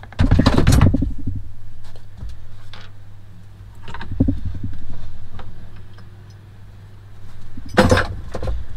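Hands rustling and bumping among cables and fittings beside a leisure battery: irregular knocks and handling noise, loudest in the first second, over a steady low hum.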